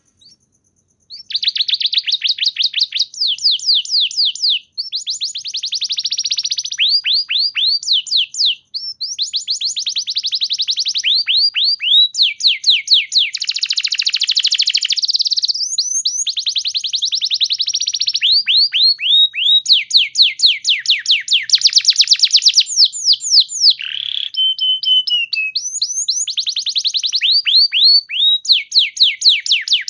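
Domestic canary singing a long, fast trilled song that starts about a second in. It is made of rapid runs of repeated high notes, with a couple of short pauses and a few held whistled notes near the end.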